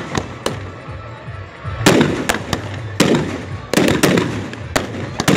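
Fireworks going off: about a dozen sharp bangs at uneven intervals, several close together a little before the end, each trailed by a rumbling echo.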